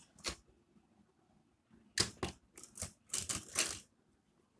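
Cardboard Beyblade box being handled and set on a wooden desk: a single click just after the start, then a quick run of sharp taps and scrapes from about two seconds in.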